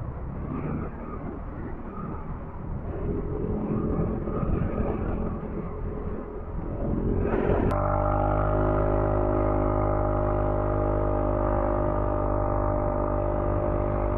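Motorcycle running on the road with wind noise on the microphone. About halfway through, the sound switches abruptly to a steady, even engine drone at constant speed.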